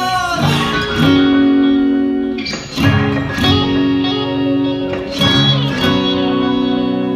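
Song playing in an instrumental passage: guitar chords, each struck and left to ring before the next.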